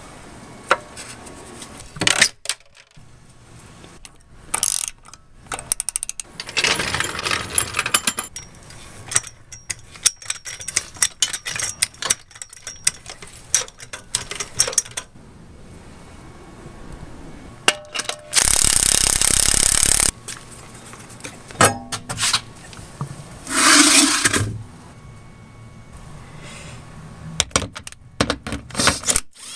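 Metal clinks, knocks and scrapes from taking off a car's hubcap and wheel lug nuts, with a cordless impact wrench running in two short bursts: the longer, about two seconds, a little past the middle, and a shorter one about a second in length some four seconds later.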